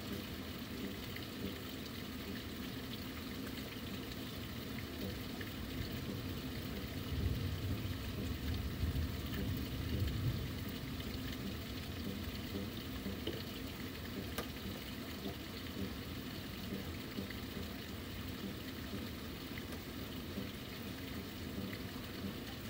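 Steady rain falling, an even hiss. A low rumble swells up from about seven seconds in and fades out again around ten seconds.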